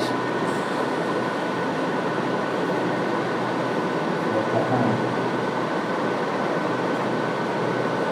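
Steady hiss and hum of room ventilation running, with two faint steady whining tones above it.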